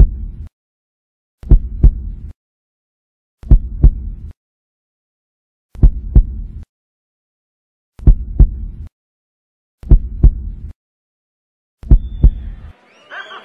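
A heartbeat sound effect: double 'lub-dub' thumps about every two seconds, each with a short low rumble, and silence between beats. Crowd chatter fades in near the end.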